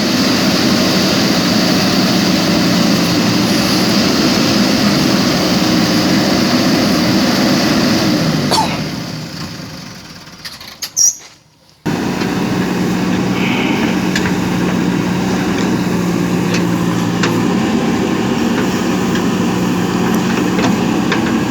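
JCB 3DX backhoe loader's diesel engine running steadily. The sound fades away about nine seconds in, with a brief click or two while it is low. It cuts back in abruptly about twelve seconds in.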